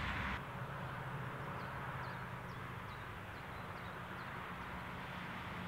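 Quiet outdoor ambience: a steady hiss with a low hum, and a small bird chirping a quick run of about seven short, high, falling notes.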